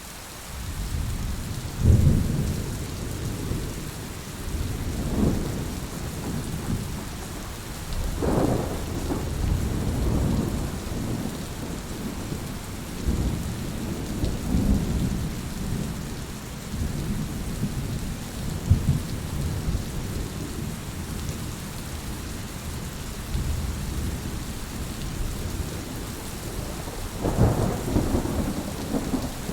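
Heavy rain falling steadily, with rolling thunder rumbling through it in several low surges, the strongest about two seconds in, around eight seconds in and near the end.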